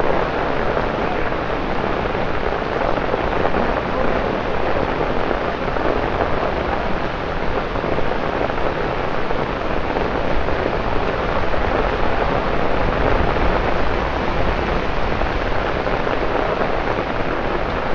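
Torrential rain falling on wet paved streets: a loud, steady, dense hiss.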